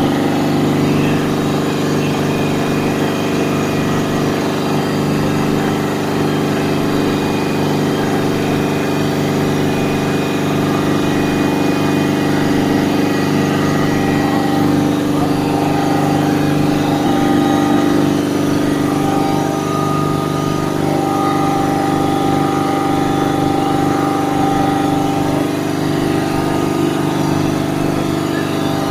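Air-cooled reciprocating air compressor driven by an electric motor, running steadily under load with an even, unbroken machine hum made of several constant tones.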